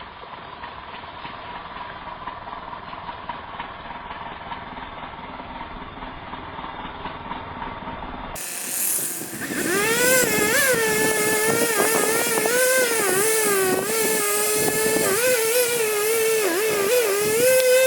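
Chainsaw cutting into a large yellow pine trunk. For the first eight seconds or so it is heard from farther off, dull and faint; then it is close and loud, its pitch dipping and recovering as the chain bogs in the wood.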